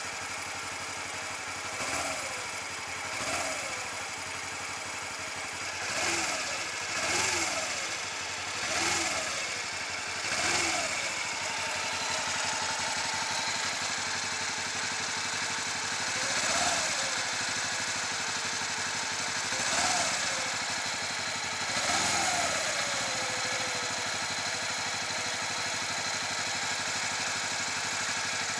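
Honda CB125T's small air-cooled twin-cylinder engine idling steadily, with about nine short throttle blips that rise and fall in pitch, bunched in the first half and spaced out later.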